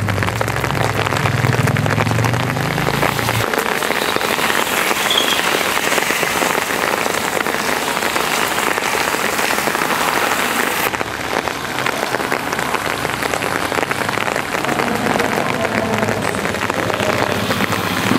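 Heavy rain falling on a road, a dense steady hiss. A low hum sits under it for the first three seconds or so.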